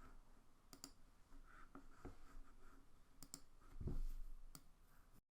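A few sharp computer mouse clicks, some in quick pairs, with a dull low thump about four seconds in; the sound cuts to dead silence just before the end.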